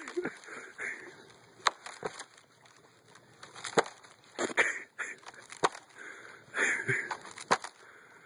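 Thin ice cracking under a person standing and bouncing on it in rubber boots: a string of sharp, separate little cracks, about seven of them, spaced irregularly a second or so apart.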